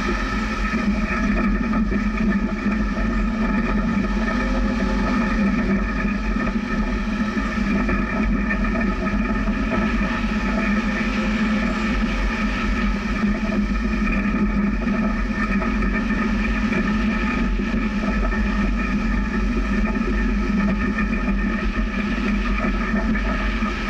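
Jeep driving on a rough dirt trail: a steady engine drone over the rumble of tyres on gravel.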